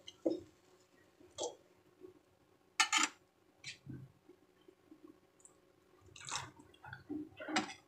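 A few short knocks of a steel spoon in an aluminium kadhai, the loudest about three seconds in, then water poured from a steel tumbler into the curry, splashing for the last two seconds or so.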